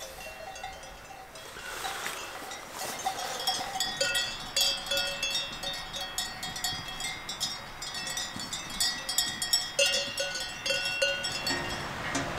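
Bells on grazing cattle clanking irregularly, several ringing at once, getting busier from about four seconds in.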